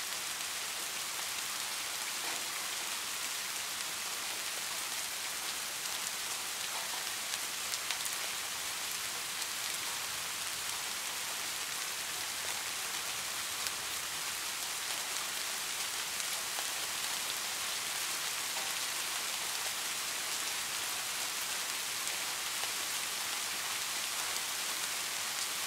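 Heavy rain falling steadily: an even hiss with a few sharper drop ticks now and then.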